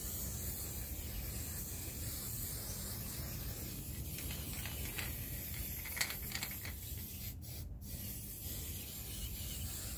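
Aerosol spray-paint can spraying paint onto stone in a steady hiss, with two short breaks about seven and a half seconds in.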